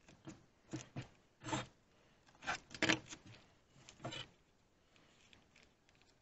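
A run of about eight short, irregular scraping strokes over the first four seconds or so, the loudest near three seconds in.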